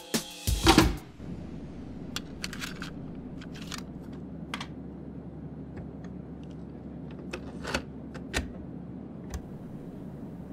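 A music cue ends about a second in. After it come scattered light clicks and short clatters, a few seconds apart, over a steady low hum.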